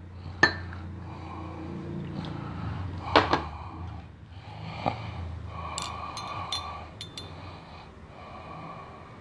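A few light clinks and taps of a kitchen utensil against a container, with a cluster of quick high ticks a little past halfway, over a low steady hum.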